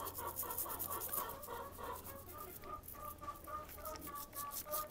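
Stiff plastic bristle brush scrubbing a sheep's hoof with soap and water in repeated rubbing strokes, washing an open wound on the foot. Hens cluck steadily in the background.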